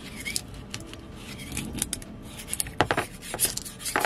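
A metal scraper prying and scraping resin prints and their supports off a resin printer's perforated metal build plate, with irregular scrapes and sharp clicks as pieces break free. The prints are stuck firmly to the plate.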